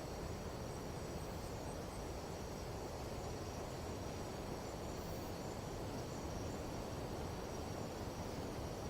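Steady chorus of night insects, several constant high trills layered together, over a low even rumble of wind.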